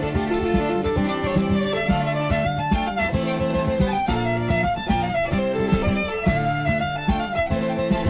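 Fiddle and acoustic guitar playing a fast Irish reel: the fiddle carries a quick running melody over a steady strummed guitar rhythm.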